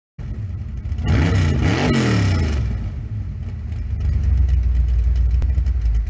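Car engine revving twice, its pitch rising and falling about a second in and again just before two seconds, then running steadily.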